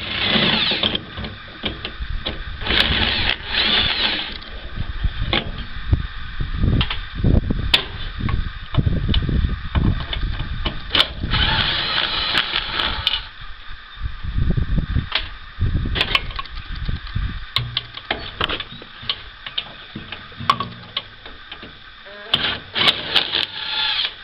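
Screws being backed out of a furnace draft fan mounting with a 3/8 nut driver, in several short whirring bursts, among knocks and clanks of sheet metal being handled.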